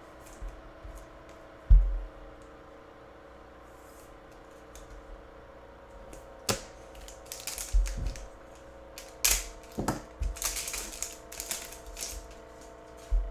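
Trading cards being handled: a low knock about two seconds in as a card goes into a plastic toploader, then, from about halfway, a run of crackling rustles and clicks as a foil football card pack is handled, torn open and its cards pulled out. A faint steady hum sits underneath.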